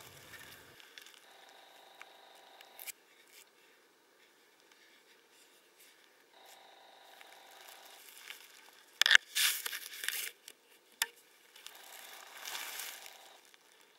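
Arrow feathers and hands rustling and scraping against a bow and its string as an arrow is handled and nocked, with a sharp snap about nine seconds in followed by a brief burst of scraping.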